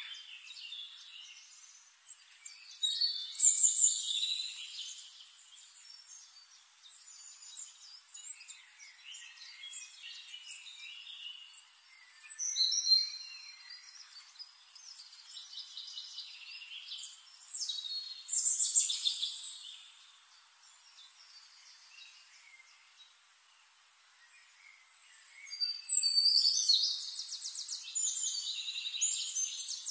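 Birds singing, short bursts of high chirps and trills with quieter gaps between them; the longest and fastest trilling comes near the end.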